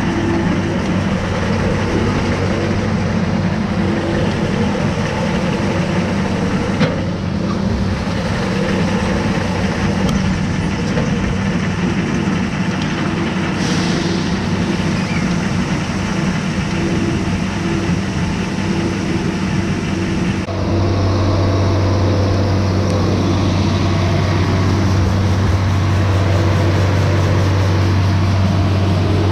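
Heavy machinery running steadily while grain pours from a hopper-bottom trailer through the grate into the pit: a steady engine hum under a dense rush of grain. About 20 seconds in the engine hum gets louder and stays louder.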